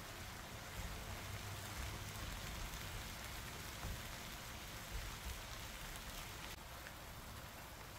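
Spicy webfoot-octopus (jjukkumi) sauce sizzling and bubbling steadily in hot pans, with a wooden spoon stirring through it now and then. The watery juices released by the octopus are boiling down into the sauce.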